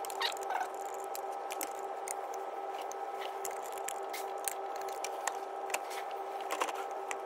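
Light, irregular metallic clicks and taps as the fixings on a viscous fan hub are worked off by hand and the fan is loosened. A steady background hum runs underneath.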